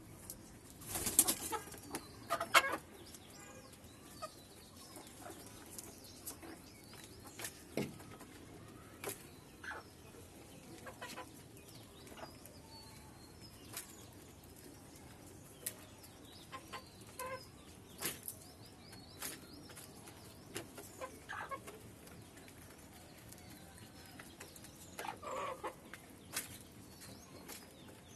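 Desi chickens clucking now and then, with a short flurry of wing flapping about a second in and scattered small clicks and scratches between the calls.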